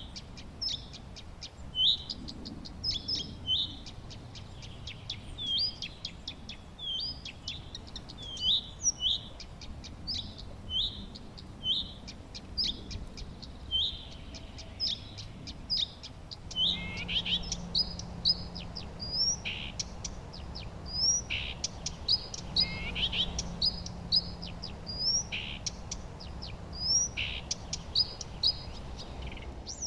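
Wild songbirds singing: a dense, continuous run of short, high chirps and quick rising and falling notes.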